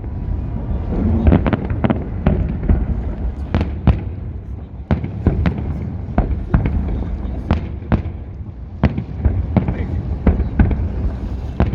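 Fireworks salute bursting overhead: many sharp cracks and bangs in quick, irregular succession over a continuous low rumble.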